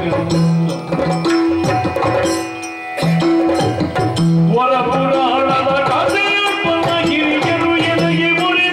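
Yakshagana drum accompaniment on maddale and chende: repeated strokes with ringing, pitched low drum tones. A melodic line comes in about halfway through.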